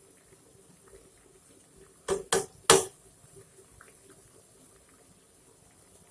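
Three sharp clinks against a cooking pot close together, about two seconds in, over the faint simmer of a pot of water with leunca leaves boiling in it.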